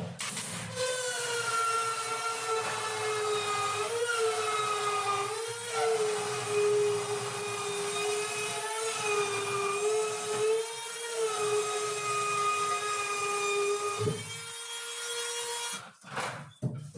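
Handheld electric power tool running with a steady whine for about thirteen seconds. Its pitch dips briefly a few times as it takes load in the work, then the motor shuts off.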